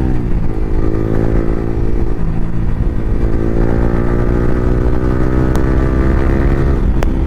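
Yamaha R15 V3's single-cylinder engine through an Akrapovic R9 exhaust with no dB killer, running at a steady, even engine speed while riding.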